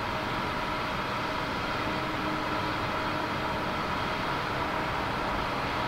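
Boeing 747-400F freighter's four jet engines running at low taxi power: a steady rushing noise with an even, high whine.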